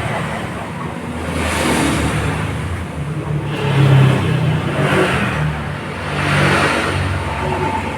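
Scooter engine running with the rear wheel spinning, the worn CVT bearing removed, under a steady low hum; motorbikes passing by on the road swell loudly over it several times.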